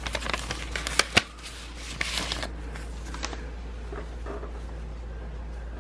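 Hands handling paper and stickers against a plastic tote lid: rustling with several sharp clicks and taps in the first second or so, a denser rustle about two seconds in, then quieter handling over a steady low hum.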